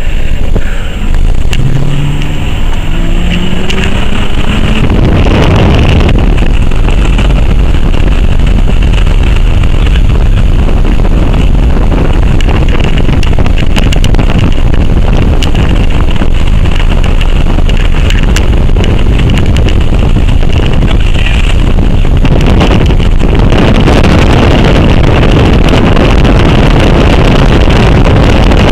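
Strong storm wind blasting the microphone, a loud, steady rushing noise heaviest in the low end. Near the start a vehicle engine revs up, rising in pitch for a few seconds under the wind.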